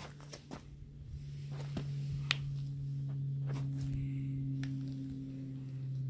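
A steady low hum with a second tone about an octave above, swelling slightly over the first few seconds, with a few light clicks and knocks, the sharpest about two seconds in.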